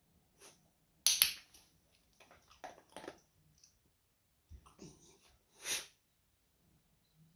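A small beagle-type dog sniffing and huffing short breaths, with a cluster of sharp clicks about a second in that is the loudest sound.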